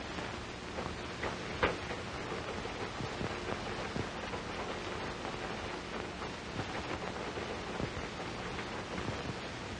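Steady hiss of an old film soundtrack, with scattered crackles and pops; one pop about a second and a half in is louder than the rest.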